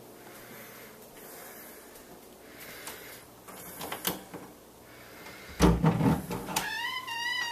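A few faint taps and clicks, then a heavy low thud with a rumble about five and a half seconds in, the loudest sound here. Near the end a wavering, gliding synth tone begins, like a theremin.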